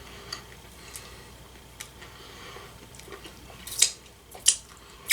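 Popcorn being eaten out of its bag: a few short, irregular crackles and crunches, the loudest ones near the end.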